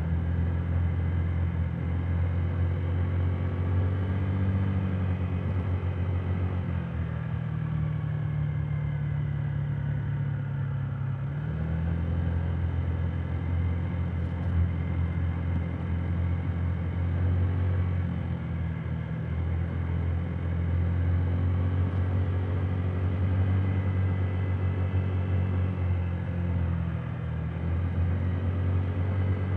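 Honda Today 50cc scooter's four-stroke single-cylinder engine running under way, heard from inside the under-seat storage compartment. The drone eases off about seven seconds in, picks up again around eleven seconds, and dips briefly near the end.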